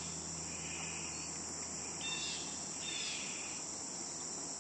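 Steady high-pitched insect chorus.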